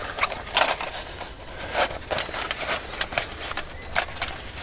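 Handling of a small folding stick stove and its little bag: irregular rustling with light metallic clicks and taps, about a dozen short ones.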